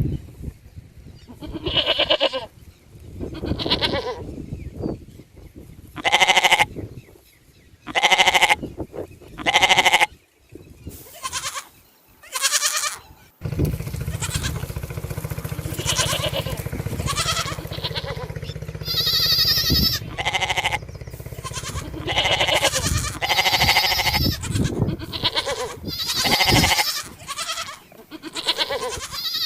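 Sheep and goats bleating: a series of separate pitched calls, each about a second long, in the first half; from about 13 seconds in, the bleats come closer together over a steady low hum.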